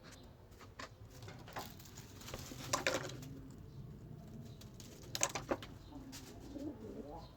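Homing pigeons cooing, low and wavering, with a few sharp clicks about three seconds and five seconds in.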